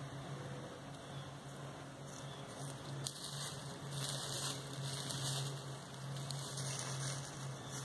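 Faint rustling of dry fallen leaves underfoot, in bursts about three to five seconds in, over a steady low hum.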